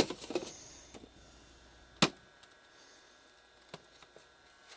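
Mini fridge's cooling fan running faintly and steadily, with one sharp click about two seconds in and a softer tick later.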